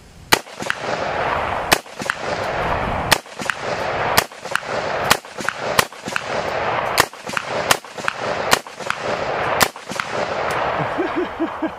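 An AR-15 chambered in 7.62x39 fired semi-automatically, about ten shots at uneven intervals of roughly one a second, each with a rolling echo after it.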